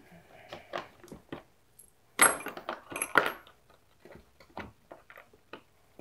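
Clicking and clattering of a hard plastic DeWalt Tough Case bit organizer and its loose metal driver bits as a tight-fitting bit holder is worked at by hand to pry it loose, with a louder burst of clatter about two seconds in.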